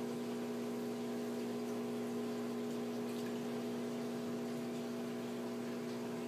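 Aquarium pump running: a steady hum with several constant tones over a wash of moving water.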